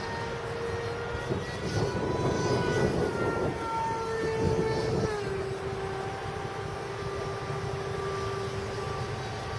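Twin-engine jet fighter flying overhead: a steady engine tone with a louder rush of jet noise in the middle. The tone steps down in pitch about five seconds in.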